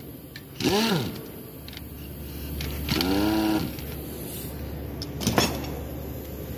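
A power tool on engine bolts whirs briefly twice, its pitch rising and then falling as it spins up and winds down; the second run is longer. A sharp metallic click comes near the end.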